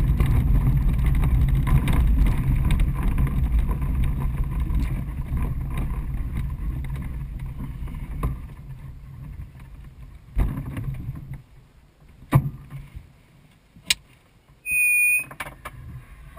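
Single Astir 77 glider rolling over a grass strip: a low rumble of the wheel and airframe that fades away as the glider slows to a stop. A few sharp clicks follow, then a short high electronic beep near the end.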